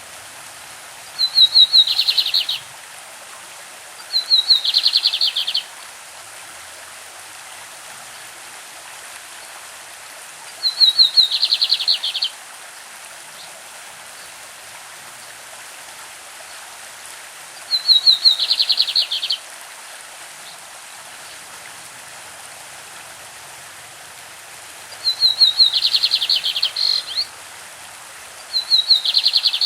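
Lined seedeater (bigodinho) singing its classic song: six short phrases of rapid repeated notes, each about a second and a half long and spaced a few seconds apart, over the steady rush of a stream.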